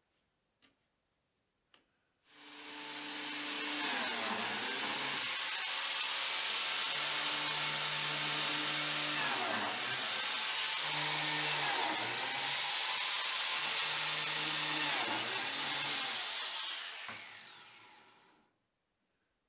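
Makita biscuit joiner starting up about two seconds in and running steadily, its note dipping briefly several times as it plunges to cut slots in oak edge strips, then switched off and spinning down near the end.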